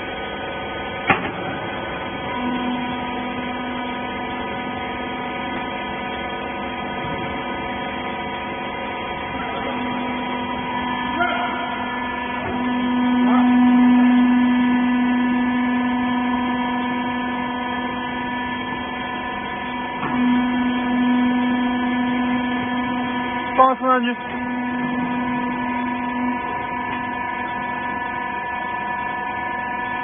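Hydraulic power unit of a 10 kg wiper baler, its electric motor and pump running with a steady hum; the hum grows louder for a few seconds midway, then settles back. A few short knocks come about a second in and again near 24 seconds.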